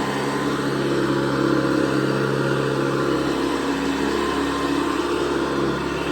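Hoover Guardsman upright vacuum cleaner running steadily, its motor humming under a rushing hiss of air, with a slight shift in pitch about three seconds in.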